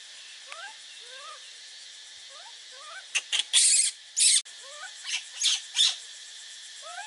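Leafy tree canopy with a steady high insect drone and short rising chirps every second or so. Between about three and six seconds in come several loud rustling bursts of leaves and branches as a baby monkey moves in the tree, and one of them cuts off abruptly.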